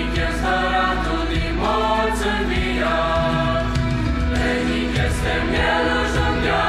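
Mixed youth choir singing a hymn in Romanian, holding full chords that change every second or so.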